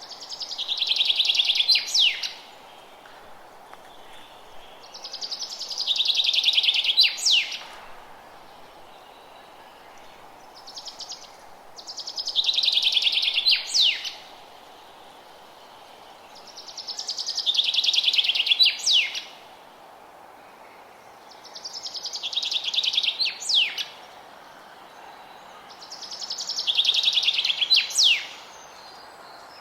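A songbird singing the same song over and over, six times, about every five seconds: each song is a fast trill that swells over about two seconds and ends in a few sharp down-slurred notes. A faint steady hiss lies underneath.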